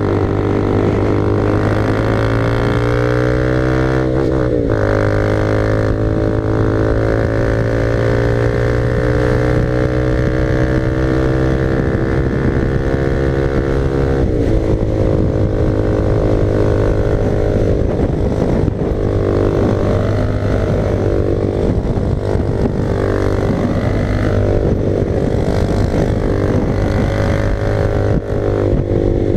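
Honda CB300R single-cylinder engine under way on the highway, its note climbing steadily in each gear and dropping sharply at upshifts about four and fourteen seconds in, then running with an unsteady, varying note.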